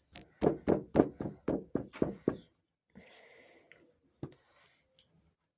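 A person laughing in a run of about ten quick breathy bursts lasting a couple of seconds, followed by a short breath and a single click.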